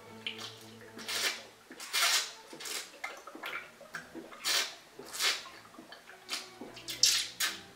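A person gulping down a drink from a cup in long, repeated swallows, about ten wet gulps at a little under one a second.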